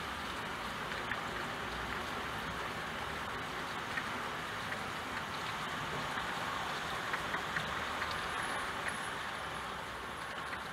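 Steady rain: an even hiss of falling rain with scattered sharp ticks of individual drops, growing a little quieter near the end.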